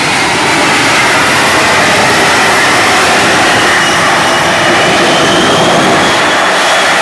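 Shockwave jet truck's three turbojet engines running with a loud, steady roar and a faint whine that rises slightly in pitch in the second half.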